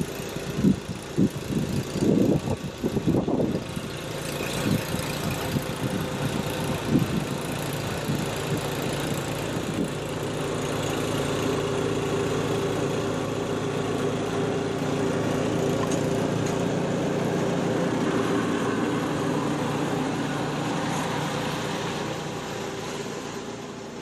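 Walk-behind gas snowblower engine running steadily while it throws snow. It grows louder as the machine comes close, about halfway through, and fades again near the end.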